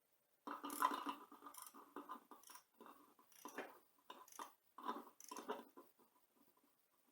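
Faint, irregular rustling and crackling, a string of short uneven bursts that stops about a second before the end.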